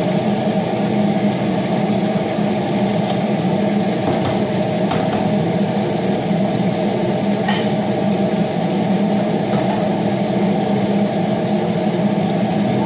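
Steady whir of a kitchen range hood exhaust fan running, with a few light knocks of a wooden spoon stirring chicken in a metal pot.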